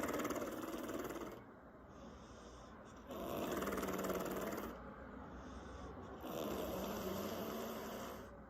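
A woman snoring, her lips flapping with each loud snore: one snore ends about a second in, and two more follow, each lasting about a second and a half, about every three seconds.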